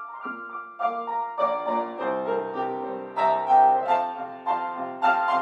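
Piano music played at a slow pace, single notes and chords struck about twice a second and left ringing.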